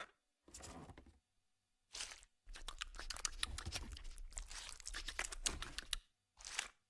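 Crispy fried chicken skin being torn off and crunched, with chewing: two short bursts, then a busy run of crackling and tearing for several seconds, then one more burst near the end.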